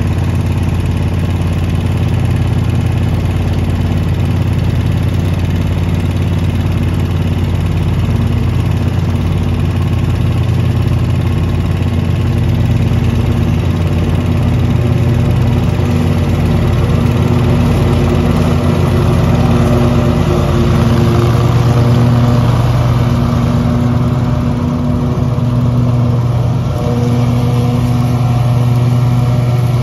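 Bobcat zero-turn riding mower's engine running steadily at mowing speed with its blades cutting grass, growing louder as the mower draws close.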